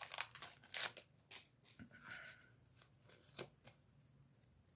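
Trading cards and foil booster-pack wrappers being handled: short rustles and light clicks in the first second and a half, a couple of faint clicks later, then near quiet.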